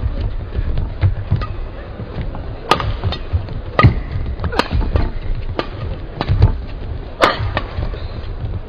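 Badminton rally: rackets striking the shuttlecock, a sharp crack about once a second at an uneven pace, over a steady low rumble.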